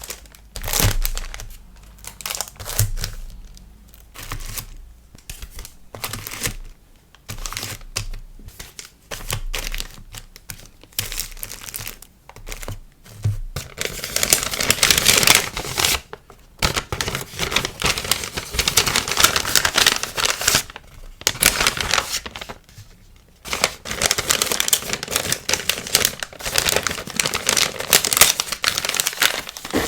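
Crinkling and rustling of packaging being handled while packing an order: short separate rustles with pauses at first, turning into dense, near-continuous crinkling about halfway through.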